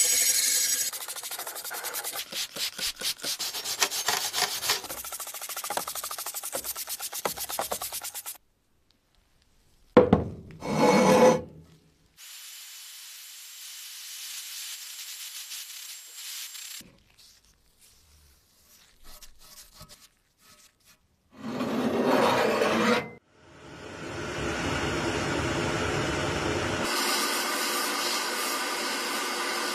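A stiff-bristled hand brush scrubbing the wet, rusty steel of an axe head in quick back-and-forth strokes. After a few short, separate sounds, a sandblaster hisses steadily from about three quarters of the way in, blasting rust off the blade.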